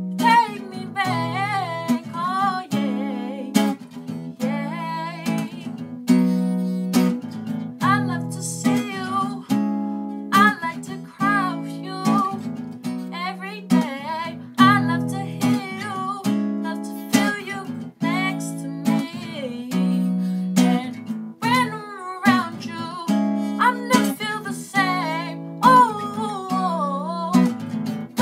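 A woman singing while strumming chords on an acoustic guitar, with steady, regular strums under her voice.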